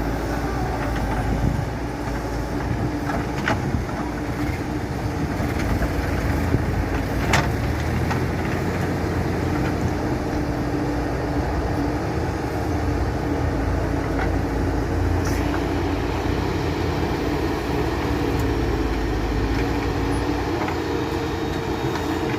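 Escorts Digimax II backhoe loader's diesel engine running steadily while it digs and loads mud, with a few sharp knocks, the loudest about seven seconds in.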